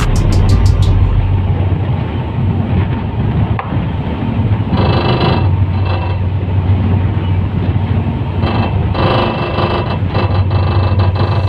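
Fast passenger boat's engines running with a steady low drone, under a constant rush of wind and water noise.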